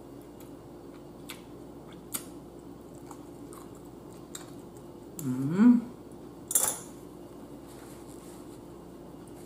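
Seafood-boil eating at a table: a few light clicks of utensils and crab shells on the platter, then a rising 'mmm' of enjoyment a little past halfway, the loudest sound, followed by a brief rustle.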